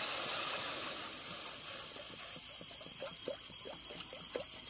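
Water poured from a plastic bottle into an empty black kadhai. The stream first hisses and splashes on the bare pan, fading over the first couple of seconds, then bubbles and plinks as it falls into the water collecting in the pan.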